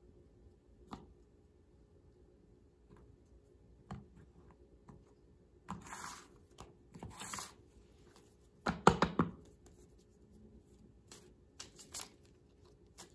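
A deck of playing cards being handled: scattered soft slides and clicks as cards are drawn and one is laid on a wooden table about six seconds in. Around nine seconds in comes a quick cluster of sharp card clicks, the loudest sound.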